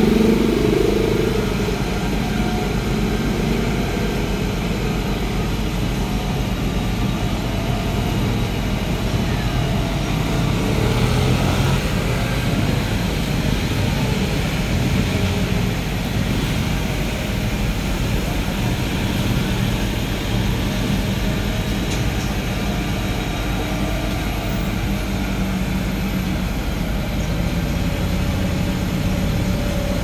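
City street traffic: a motorcycle passing close by fades out in the first couple of seconds, then a steady hum of motorcycle and car engines and tyres goes on.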